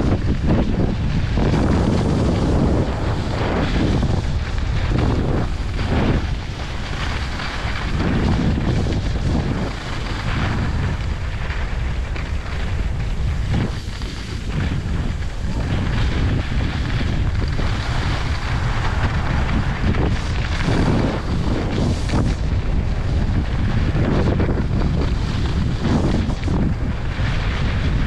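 Wind rushing over the microphone of a moving skier's camera, mixed with skis sliding and scraping over groomed snow, the noise swelling every second or two with the turns.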